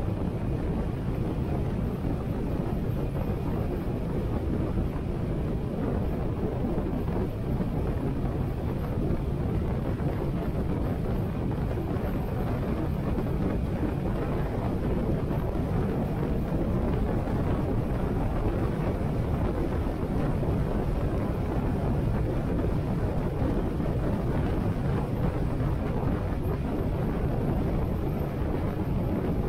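Harley-Davidson Sportster 883's air-cooled V-twin engine running at a steady cruising speed, mixed with wind rushing over the microphone. The sound holds steady, with no revving up or down.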